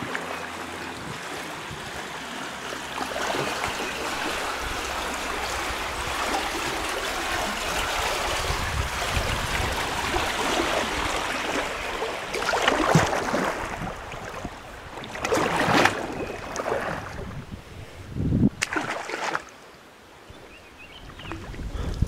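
River current rippling and rushing over a shallow riffle around a kayak, a steady wash of water. In the second half come several short, sharper splashes in pairs, the dips of a kayak paddle.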